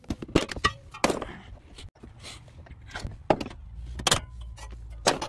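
Clicks and knocks of metal parts being handled around a Prius hybrid battery's sheet-metal cover, about a dozen separate hits, with a low rumble under the second half.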